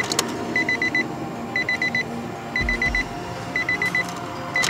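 A 2014 Nissan Versa's warning chime going off in the cabin: groups of four quick, even beeps, repeating about once a second.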